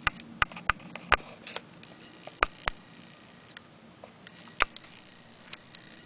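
A dozen or so sharp, irregularly spaced clicks and ticks, the loudest ones within the first five seconds.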